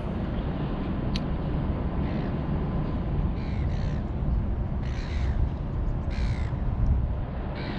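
A crow cawing several times, short harsh calls spaced a second or so apart, over a steady low rumble. A single sharp click about a second in.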